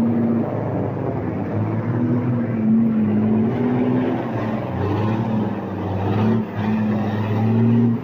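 Heavy truck's diesel engine labouring under load as it drives through deep mud and floodwater, its revs rising and falling.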